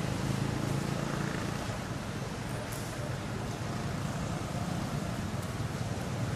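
Steady outdoor background noise with a low motor rumble, like road traffic running nearby.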